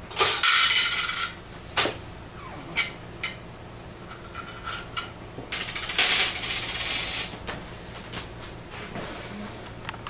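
Coins clattering through an antique Western Electric three-slot payphone into its coin return: a loud rattle of just over a second at the start, a few single clicks, then a second long clatter of coins about halfway through as they are taken from the return cup.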